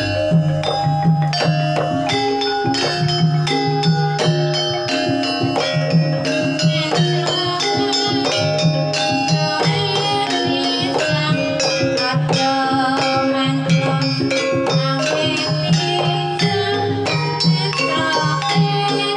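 Javanese gamelan music playing a gendhing: bronze metallophones and gongs ring held notes over a steady, quick kendang drum pattern.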